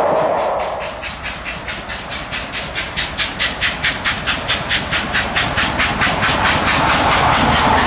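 LMS Stanier Black 5 two-cylinder 4-6-0 steam locomotive working hard at speed, its exhaust beats coming in a fast, even rhythm that grows louder as it approaches.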